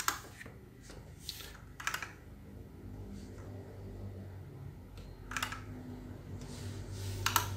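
Computer keyboard keystrokes in a few short, scattered clusters of clicks, with a faint low hum underneath.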